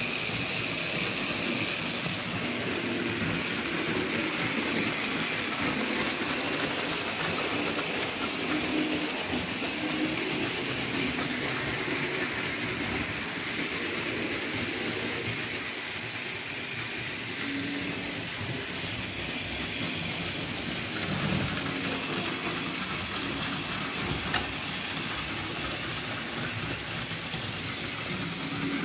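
Model steam locomotive pulling coaches on metal track: a steady whir and rattle from the motor and the wheels on the rails.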